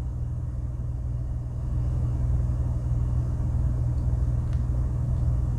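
Steady low hum and rumble with no speech, and a faint click about four and a half seconds in.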